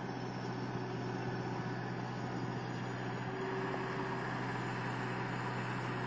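Skid steer loader engine running steadily, with a constant low hum.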